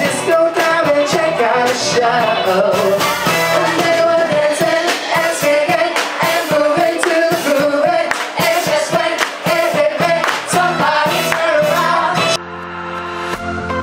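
Live band playing a song, a singer over electric guitar, bass and drums, with a steady beat. About twelve seconds in it cuts abruptly to different, quieter background music.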